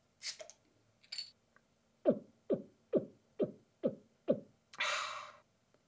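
Cartoon drinking sound effect: two short hisses, then six quick gulps about two a second, each sliding down in pitch, ending in a breathy hiss like a satisfied exhale.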